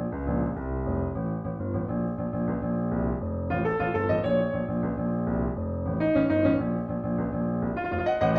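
Background piano music, a run of sustained keyboard notes with no speech.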